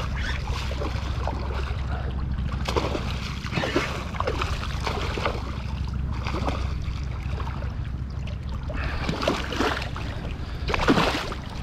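Water sloshing and splashing in shallow lagoon water, with irregular splashes and the largest near the end, over a steady low rumble of wind on the microphone.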